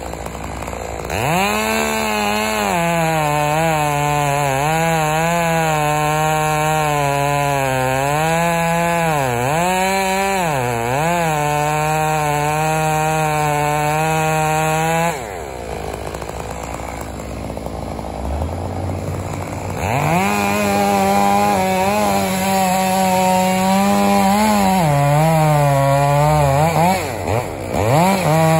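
Two-stroke chainsaw running at full throttle, its pitch dipping again and again as it bogs down in the cut. It drops off about 15 seconds in and comes back up to cutting speed about 20 seconds in.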